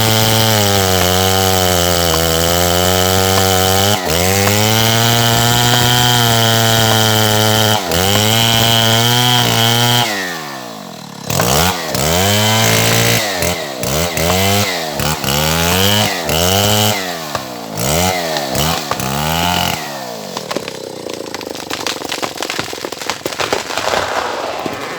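Stihl MS070 chainsaw, a big two-stroke, held at full throttle for about ten seconds, its pitch sagging and recovering now and then. It is then revved up and down in a series of quick blips, and near the end the engine gives way to a steady noisy hiss.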